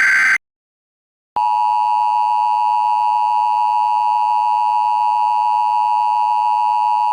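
The tail of an Emergency Alert System SAME header data burst ends just after the start. After about a second of silence, the EAS two-tone attention signal (853 and 960 Hz together) starts about a second and a half in and holds steady and loud, announcing the emergency message that follows.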